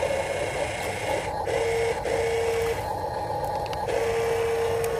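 The electric tipper motor of a HuiNa 1573 RC dump truck whines as it raises the loaded bed to dump soil. It runs in stretches of about a second, stopping and starting a few times.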